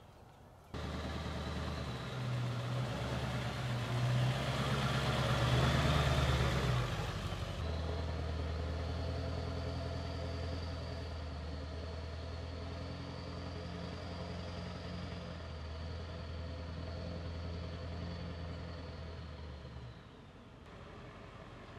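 Pickup truck carrying a truck camper driving past and away along a paved road: a steady low engine note with tyre noise, loudest as it passes early on, then running on more evenly and dropping off near the end.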